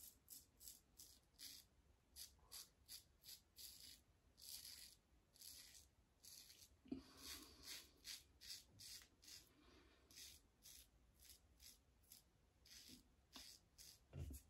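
Rockwell Model T double-edge safety razor with a Gillette 365 stainless blade scraping through lathered stubble on the chin and neck: short, quiet rasping strokes in quick succession, with a soft thump about halfway through.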